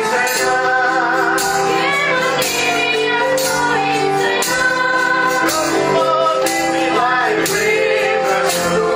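Music: a woman singing a melody over instruments, with a sharp percussive beat about once a second.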